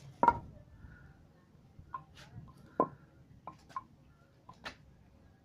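Sharp wooden knocks of a baton striking the spine of a high-speed-steel knife, driving the blade into a log: batoning. Two loud strikes, just after the start and near the middle, with fainter taps between and after.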